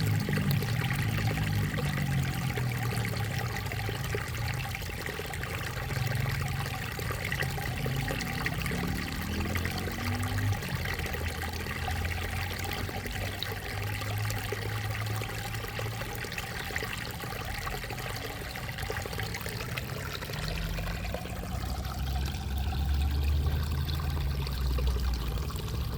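Water of a small creek flowing and trickling steadily over stones, with a low rumble underneath that swells near the end.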